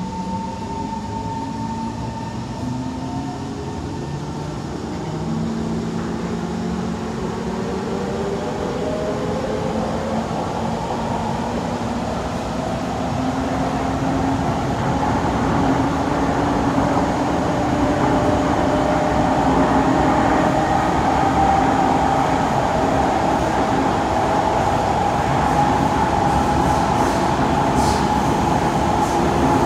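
Kawasaki–Nippon Sharyo C151 metro train pulling away slowly in a tunnel, heard from inside the car. The traction motors' whine climbs gradually in pitch in several tones while the running rumble grows louder as speed builds. The uploader calls this a slow pickup.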